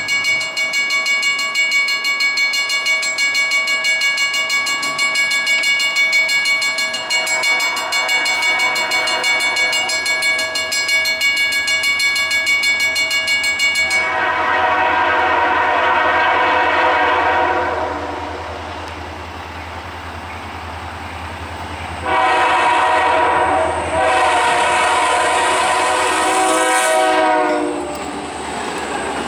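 A grade-crossing bell rings steadily, struck rapidly, while a freight train draws near. Then the lead EMD SD40-2 diesel locomotive sounds its horn for the crossing: one long blast, a gap, and two more long blasts back to back, over the low rumble of the passing locomotives.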